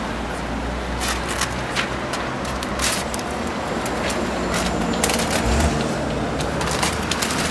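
Short, sharp hissing and crackling bursts from stencil spray-painting at a wall (aerosol spray-can bursts and the stencil sheet being handled), repeated irregularly from about a second in, over a steady low hum of street traffic.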